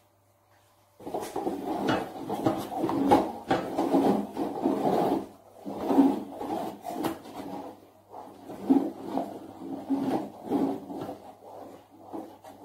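A wooden spatula stirring and scraping thick caramel in a metal wok: an uneven run of rasping strokes that starts about a second in and keeps going.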